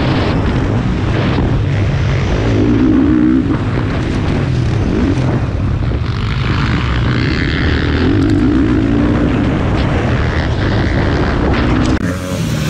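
Motocross bike's engine revving hard and easing off over and over as it races round the track, heard from an onboard action camera with heavy rumble and wind noise; the sound briefly drops near the end.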